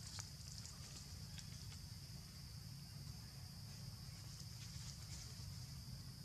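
Forest insects droning on one steady high note, over a low steady rumble, with a few faint scattered clicks.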